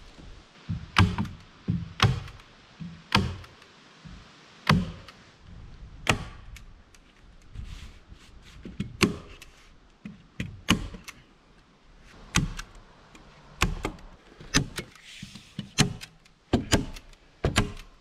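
Hammer tacker striking staples through tar paper into wooden roof boards: a string of sharp knocks, about one a second and sometimes two in quick succession.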